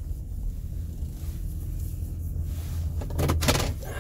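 GMC Savana cargo van's engine running at low speed, heard as a steady low rumble inside the cab while the van creeps into a parking spot. About three seconds in, a short burst of clicks and rattles is the loudest sound.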